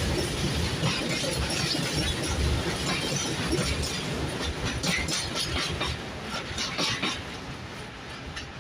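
A passing train: wheels clattering and clacking over the rail joints over a steady rumble, fading away over the last couple of seconds as it moves off.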